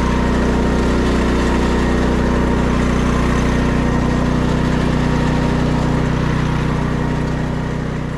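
Engine of an ORECK Weedman SJ800 riding paddy-field weeder running steadily, getting slightly quieter near the end.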